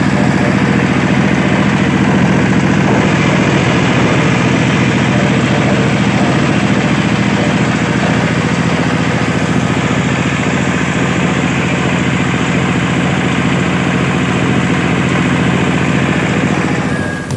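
An engine running steadily at one constant speed, with no revving.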